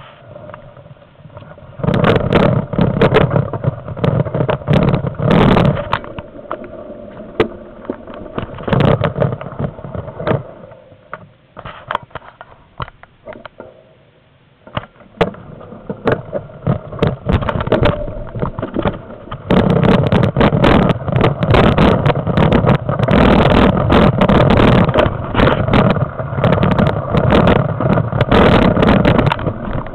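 Mountain bike riding over a rough gravel track close to the microphone: a jumble of rattling and bumping over a low rumble. It is loud from about two seconds in, eases off in the middle, and is loud again from about twenty seconds on.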